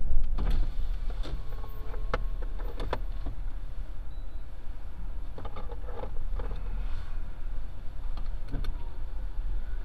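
Car cabin sound while driving slowly: a steady low rumble of engine and tyres, with scattered clicks and knocks, the loudest just after the start.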